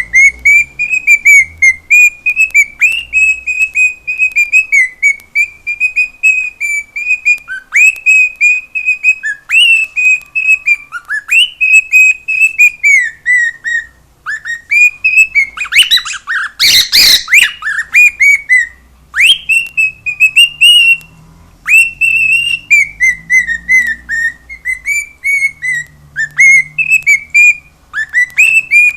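Cockatiel singing: a long string of warbling, whistled phrases with only short breaks, and a brief, louder, harsher burst about halfway through.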